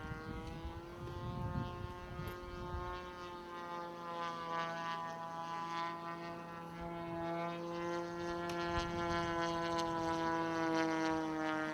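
Radio-controlled model airplane engine running at a steady pitch, a droning tone that grows louder over the second half, with some wind rumble in the first few seconds.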